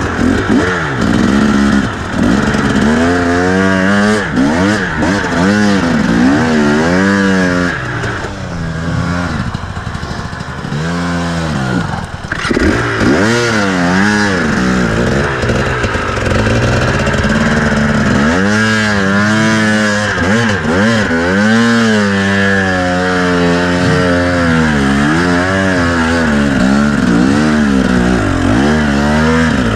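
KTM two-stroke enduro motorcycle engine revving up and down in short throttle bursts as it is ridden slowly over rough ground. About eight seconds in it drops to a lower, quieter run for a few seconds, then the quick up-and-down revving returns.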